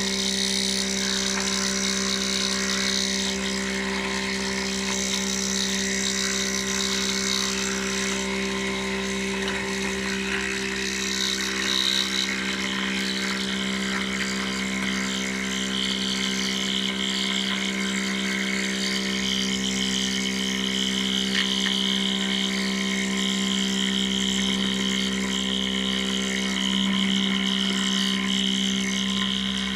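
CNC metal milling machine running: a steady machine hum with a higher whine that comes in about halfway through.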